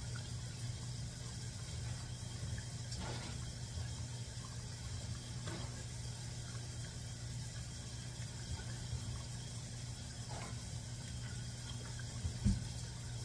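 Dumplings deep-frying in a pot of oil, the oil bubbling and sizzling steadily. A brief low thump sounds near the end.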